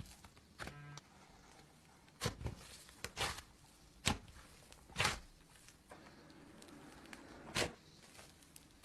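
Slime being played with by hand, giving about six separate sticky pops and clicks at irregular intervals.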